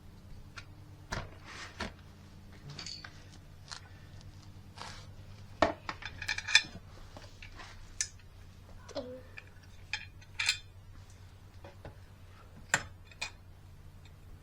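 Hand tools and small metal parts clinking and knocking in irregular taps, with a cluster of ringing metallic hits about halfway through, during reassembly work on a pit bike.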